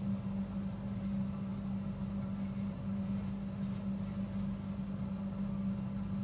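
A steady low hum, like a fan or small motor running, with no change in pitch or level.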